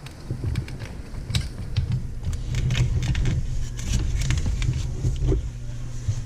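Hands working a plastic grinder vacuum shroud and its band clamp: irregular clicks and rattles over a low rumble of handling noise.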